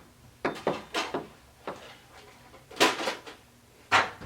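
Toy Nerf weapons being handled and put away: short knocks and clatters of hard plastic in three groups, about half a second in, near three seconds, and about four seconds in.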